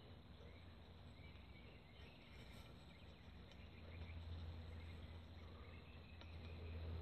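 Near silence: faint outdoor ambience, a low steady rumble with scattered faint high chirps.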